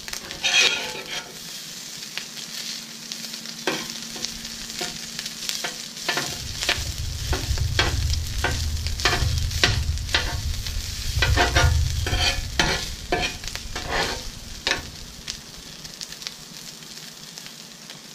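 Crumbled smoked breakfast sausage sizzling on a hot steel flat-top griddle while a metal spatula scrapes and taps the griddle top, chopping and turning the meat. The scraping strokes come thick and fast through the middle, over a low rumble.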